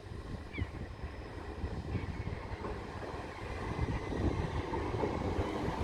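South Western Railway Class 444 electric multiple unit pulling away from the platform, a low rumble that grows louder about four seconds in.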